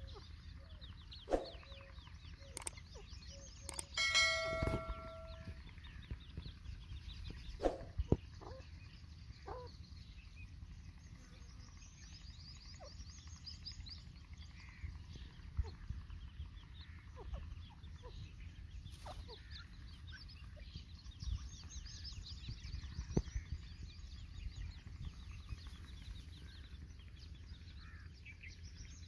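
Grey francolins, a hen with chicks, clucking softly, with faint high peeps throughout. A louder held note sounds briefly about four seconds in, and there are a few sharp clicks.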